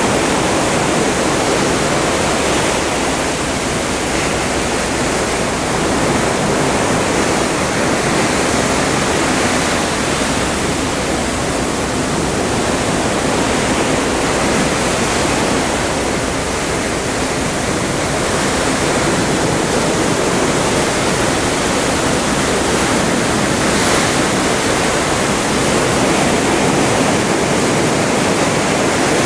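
Open sea rushing past the hull of a moving cruise ship: a steady wash of water with slow, gentle swells in loudness.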